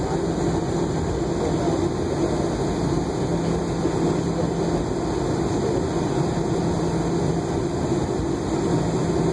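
Cabin noise of a Boeing 717 taxiing, its rear-mounted Rolls-Royce BR715 engines at low power with the cabin air conditioning: a steady hum with a low held drone.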